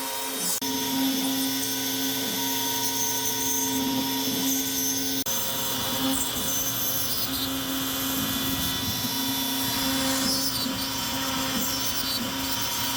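Electric woodworking power tool motor running steadily with a constant whine, dipping briefly about five seconds in.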